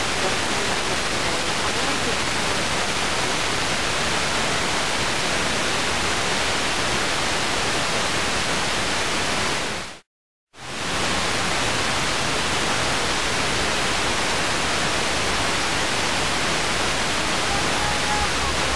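FM radio receiver hiss: a steady rush of static from the Tecsun PL-606 with no station coming through, the aircraft-scattered signal having faded out. The hiss fades to silence about ten seconds in and comes back half a second later.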